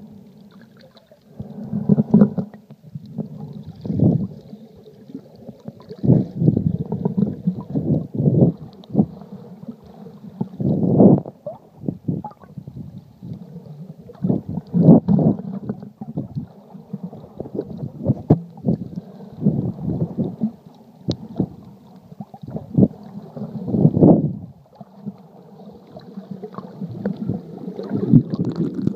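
Muffled underwater sloshing and gurgling picked up by an iPhone sealed in a waterproof case and held underwater. It comes in irregular dull surges every one to three seconds as the water moves against the case.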